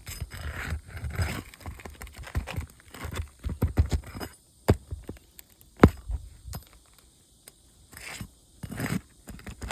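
Roof snake (shingle-removal tool) scraping and prying under a three-tab asphalt shingle to pull out its staples: irregular scrapes and crackles, then a few sharp clicks, the loudest about six seconds in.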